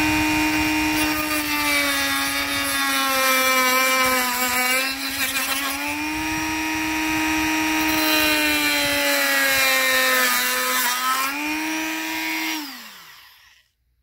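Dremel rotary tool with a cutting wheel running at high speed as it cuts a notch into a flush pull slam latch, a steady whine that dips a little in pitch each time the wheel bites. Near the end the motor is switched off and the whine falls away as it spins down.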